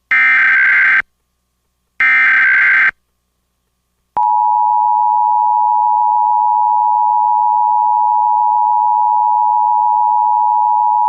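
Emergency Alert System tones: the last two of the three SAME header data bursts, each about a second of rapid warbling digital tones, a second apart. About four seconds in, the EAS attention signal starts: a steady two-tone alarm (853 and 960 Hz) that announces an emergency alert.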